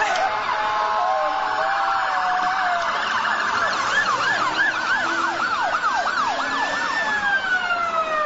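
Several emergency-vehicle sirens sounding at once. A fast warble early gives way to rapid up-and-down yelps about three seconds in, then a long, slow rising and falling wail near the end.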